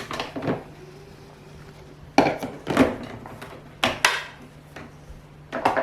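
Hard plastic parts of a barrel vacuum cleaner being handled: a handful of separate knocks and clicks, near the start, about two seconds in, around four seconds and again near the end, over a faint steady low hum.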